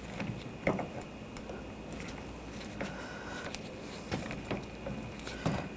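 Scattered light clicks and taps of the door handle's cover and rod being worked into place in the door, with a brief squeak about halfway through.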